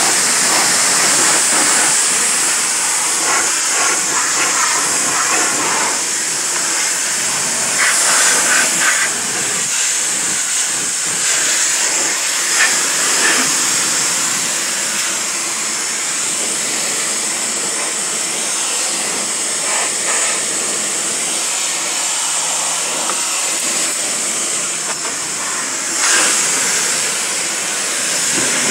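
Pressure washer spraying: a steady, loud hiss of the water jet striking the car, with a few brief louder spatters as the spray moves.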